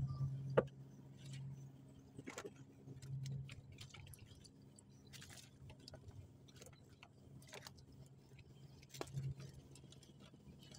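Small boat engine idling with a steady low hum, with scattered clicks and knocks on top.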